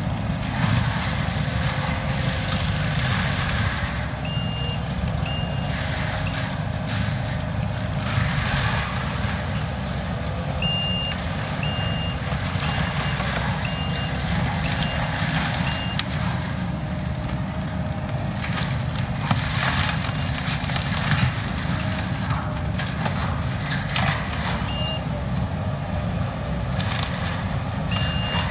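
Kubota SVL compact track loader with a forestry mulcher head running under load, its diesel engine and mulcher drum working through brush and small trees. Its reversing alarm sounds in runs of short, evenly spaced beeps several times as it backs up.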